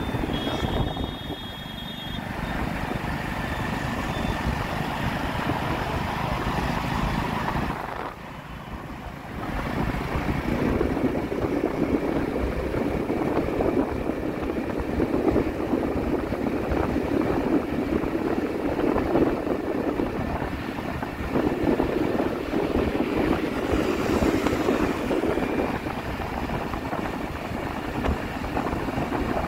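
Steady engine, tyre and wind noise heard from a vehicle moving along a road, with a brief high beep about a second in and a short quieter stretch around eight seconds.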